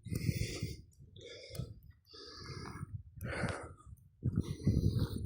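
A person's heavy breathing close to the microphone, about one breath a second, each puff of air rumbling on the mic.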